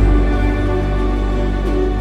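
Background music: a slow, soft instrumental with sustained notes over a deep bass.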